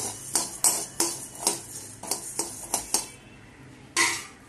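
Spatula scraping and clinking against a metal kadhai while stirring coriander seeds being dry-roasted, the seeds rattling in the pan. The strokes come about three a second, pause briefly, and end with one longer scrape.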